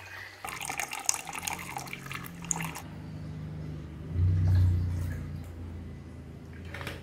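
Water poured from a plastic bottle into a plastic pitcher, splashing loudest over the first three seconds. A low hum swells briefly around four to five seconds in.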